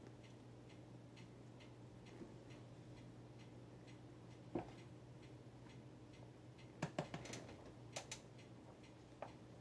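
Kitten-heel shoes clicking and knocking on a tile floor as the heels step into and press down on pineapple cakes: one sharp click about halfway through, then a quick cluster of louder clicks a little later and one more near the end. Faint regular ticking, about two or three a second, and a low hum run underneath.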